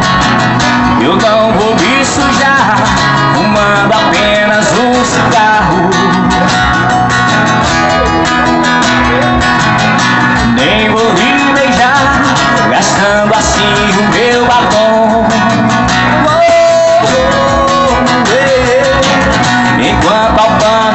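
Guitar music: an instrumental passage of a Brazilian bar-style song, a melodic lead line with sliding, bending notes over chords, steady and full throughout.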